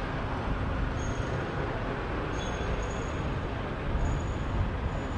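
Steady city street traffic noise: a rumble of road vehicles with no single vehicle standing out, and a few faint, brief high-pitched squeals.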